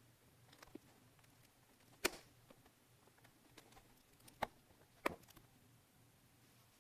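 A few sharp small clicks and taps of hard plastic and metal parts being handled during a laptop RAM and SSD upgrade: one about two seconds in, two more near four and a half and five seconds, with fainter ticks between.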